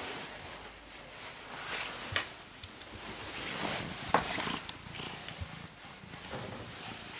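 Domestic cat purring close up, with a few sharp clicks about two and four seconds in.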